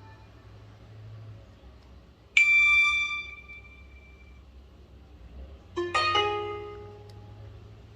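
Two short BlackBerry Curve 8900 alert tones. A single bright chime sounds about two and a half seconds in and fades away; near the end, a quick run of several plucked-sounding notes starts and rings out.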